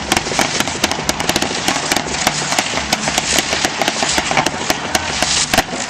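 Aerial fireworks bursting in a dense barrage of sharp cracks and pops, many a second, from crackling shells. There is a louder bang near the end.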